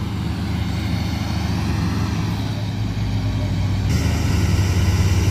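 Diesel engines of tracked hydraulic excavators running steadily, a low even drone that grows slightly louder toward the end.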